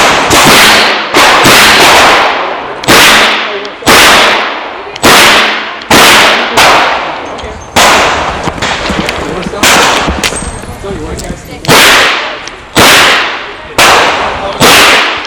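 Chiappa Rhino .38 Special revolver fired in a string of about a dozen sharp shots at uneven spacing, each ringing out and fading before the next.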